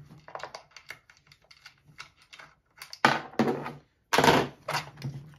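Clicks, taps and clunks of chainsaw cover and housing parts being handled during disassembly: a run of small sharp clicks, with louder clunks about three seconds and about four seconds in.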